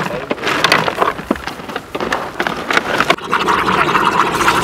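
Dry-ice pellets clattering and crunching as they are packed around a stainless steel pot. About three seconds in, a steady hiss starts as liquid ammonia runs in from a hose and boils off.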